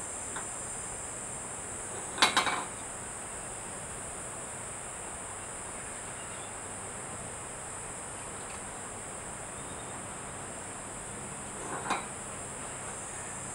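An aluminium drinks can knocking and clattering on a wooden tabletop as a monkey handles it: a quick cluster of knocks about two seconds in, and a shorter one near the end. A steady high-pitched insect chorus runs underneath.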